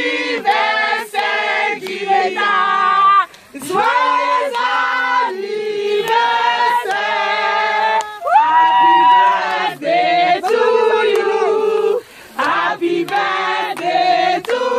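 A group of men and women singing a birthday song together, in held, sung phrases with brief breaks between them.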